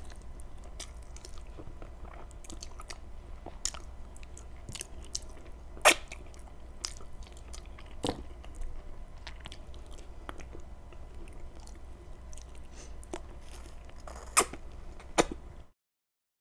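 A person chewing and biting food close to the microphone, with a few sharp clicks, the loudest about six seconds in and twice near the end. The sound cuts off suddenly just before the end.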